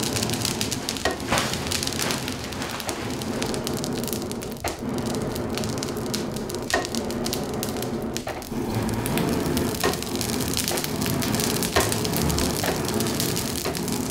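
Charcoal fire in a swordsmith's forge crackling steadily, with scattered sharp pops. A katana blade is being heated to a red glow for hardening (yaki-ire).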